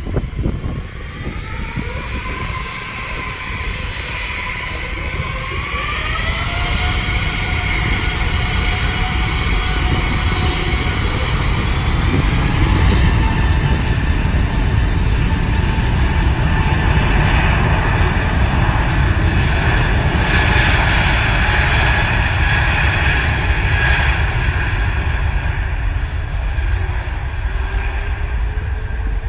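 Airbus A380's four Engine Alliance GP7200 turbofans spooling up for takeoff: several whines rise in pitch over the first few seconds, then settle into a loud, steady, deep rumble at high power.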